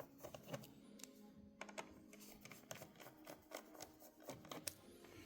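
Scattered small clicks and taps of small screws and a screwdriver being handled and set down, irregular and several a second at times, over faint background music.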